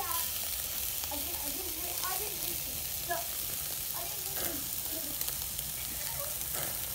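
Chicken tikka pieces on metal skewers sizzling over a charcoal barbecue grill: a steady hiss with small scattered crackles.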